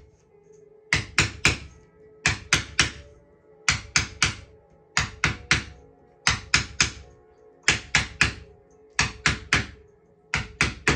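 Small wooden mallet tapping the edge of a pressed-cane chair seat, driving the cane sheet down into the groove around the seat. Quick groups of three sharp taps, a group about every second and a quarter.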